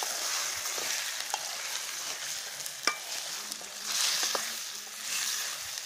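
Masala-coated country chicken pieces sizzling in a steel pot while a ladle stirs them. A few sharp clinks come from the ladle against the pot.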